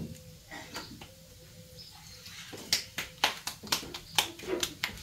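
Hands patting a ball of masa flat between the palms to shape a gordita, a quick run of wet slaps about three a second that starts about halfway through.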